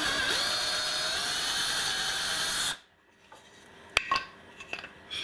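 19.2-volt cordless drill boring through a wooden 1x2 board to enlarge a screw pilot hole. The motor's pitch rises in the first second, then the drill stops about three seconds in, followed by a sharp click and a few light knocks.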